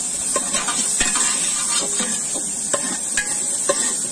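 A long metal ladle stirring chicken pieces in a large aluminium pot, knocking and scraping against the pot about six times at uneven intervals, over a steady frying sizzle.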